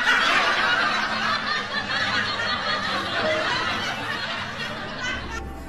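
A person laughing hard in a breathy, hissing laugh that starts suddenly and slowly fades. A low hum comes in near the end.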